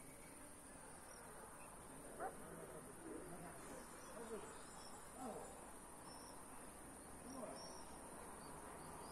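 Faint, steady, high-pitched chorus of crickets trilling without a break. A few brief, faint distant sounds that slide in pitch come through underneath, the clearest about two seconds in.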